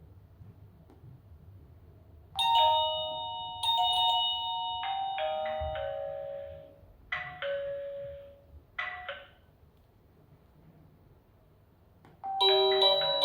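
Electronic wireless doorbell chime playing its ding-dong melodies as it is paired with a Misen video doorbell: a multi-note tune starting about two seconds in, a few short tones a little past the middle, then another tune starting near the end.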